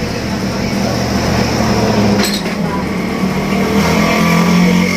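Valve of a SYM 110 motorcycle cylinder head being lapped into its seat: a steady grinding that runs on, with a sharp click about two seconds in.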